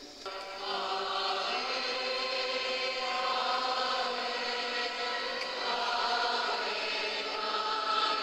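A group of voices singing a slow hymn in chant style, with long held notes, starting about half a second in.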